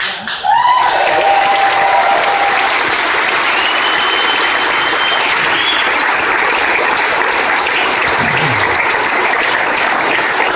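Audience applause that breaks out suddenly and carries on steadily, with a few cheers rising above it.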